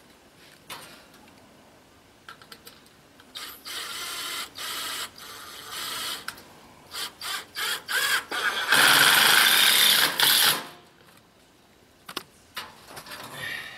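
Cordless drill driving screws into a wooden frame: a few short bursts of the motor, then one longer, louder run lasting about two seconds that stops abruptly, with light handling clicks around it.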